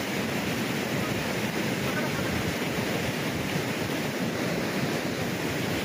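Swollen mountain river in flood, its fast grey water rushing over boulders with a steady, unbroken roar.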